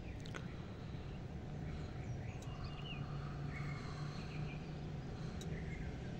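Outdoor ambience: a steady low hum under faint, scattered bird chirps, with a couple of light clicks.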